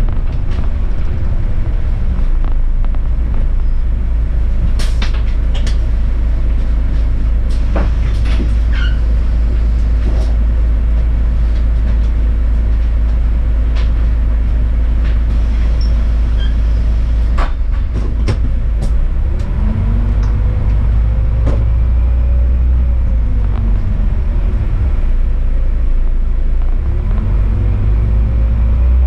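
City bus driving in town traffic: a steady low rumble of engine and road, with scattered sharp clicks and rattles and a pitch that glides up and down about two-thirds of the way in.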